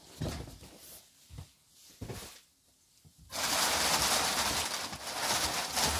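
Faint handling knocks, then about halfway through a loud, continuous crinkling and rustling of tissue paper starts abruptly, as paper is pulled from a doll box.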